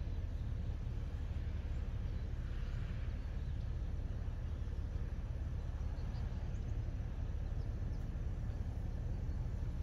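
Outdoor ambience dominated by a steady low rumble, with no distinct event standing out.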